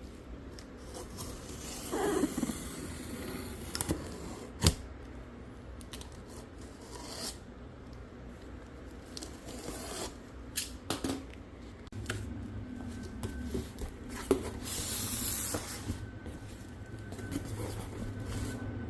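Shipping box being opened by hand: packing material rustling and crinkling as it is pulled out, with scattered knocks and clicks.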